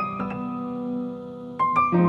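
Background piano music: a few quick notes at the start and again near the end, with held notes ringing between.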